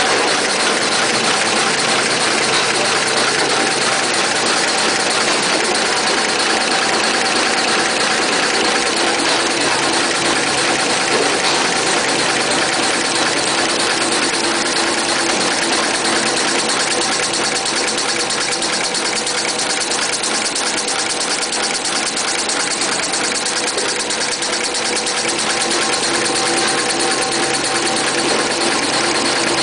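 Kitchen towel production line running: a loud, steady mechanical din of rollers, chain and belt drives, with a rapid, even clatter.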